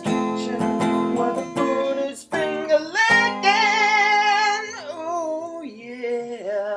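Background music: strummed acoustic guitar with a voice singing over it.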